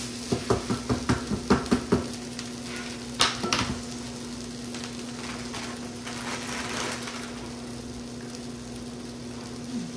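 Sliced bell peppers sizzling in a frying pan while metal tongs tap and clatter against the pan in quick strokes for about two seconds, then a few sharp clicks a little after three seconds in as the tongs are set down. A steady low hum runs underneath.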